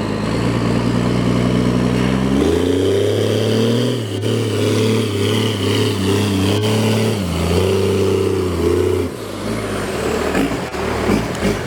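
Truck engine running under load, its pitch stepping up about two and a half seconds in, holding, then dropping back around nine seconds.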